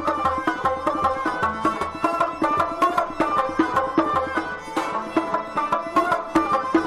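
Background music: a melody over a quick, steady drum beat.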